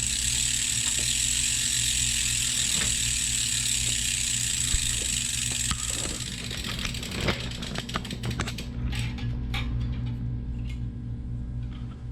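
Bicycle freewheel ratchet buzzing as a spun wheel coasts. The clicking runs together into a steady high buzz, then slows into separate ticks about seven seconds in as the wheel winds down, followed by scattered small clicks.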